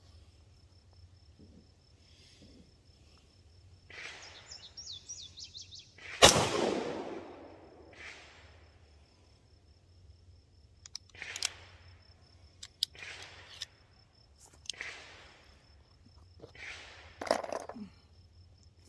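A single shot from a prototype semi-automatic pistol about six seconds in, after a few metallic handling clicks. Several more clicks and knocks follow as the gun is worked by hand, which fits clearing another failure to extract, where the spent case is not pulled from the chamber.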